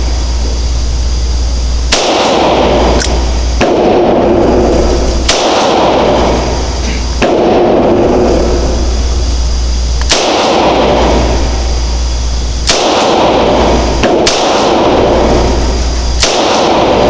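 Diamondback Sidekick .22 revolver fired shot by shot, about a second or two apart with some longer pauses, over steady loud background noise.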